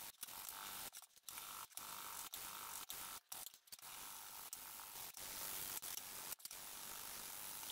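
Sanding block with sandpaper rubbed back and forth along the edges of a 1/8-inch aluminium plate, rounding them off. A steady rasping in strokes, with short breaks between them.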